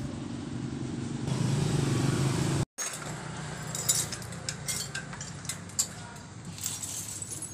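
For the first couple of seconds a vehicle engine runs steadily and gets louder, then the sound breaks off. After that come scattered light metallic clinks and knocks as a motorcycle fork tube, held upright in a steel basin to drain its fork oil, knocks against the basin, over a faint engine hum.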